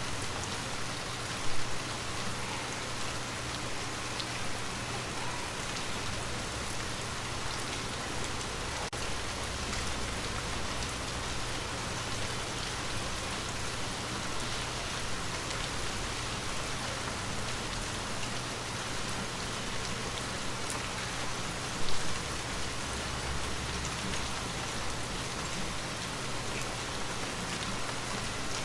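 Steady rain falling on a window glass, with two brief louder hits: one about a second and a half in, the other about three quarters of the way through.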